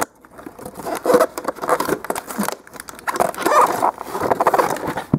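Stiff moulded plastic clamshell packaging crackling and clicking as it is bent and pried apart by hand, a rapid run of sharp plastic snaps and creaks.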